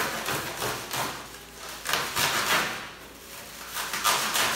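A blade slicing through plastic stretch wrap and packing tape on a cardboard box, in three noisy scraping strokes about two seconds apart.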